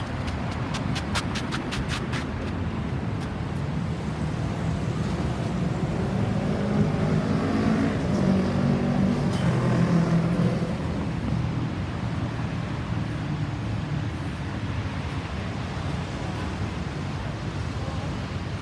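Road traffic with a vehicle passing close, its engine and tyre noise swelling to the loudest point about eight to ten seconds in, then fading. A quick run of clicks sounds in the first two seconds.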